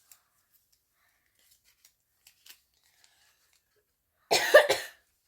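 A few faint handling ticks, then about four seconds in a short, loud rip as a foil Pokémon card booster pack is torn open.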